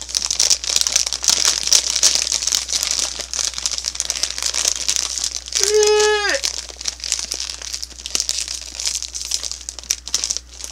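Plastic snack bag of cheese curls crinkling and crumpling as it is handled and folded shut, the crinkle thinning out near the end. About six seconds in, a man's wide yawn gives one held vocal tone that drops off at its end.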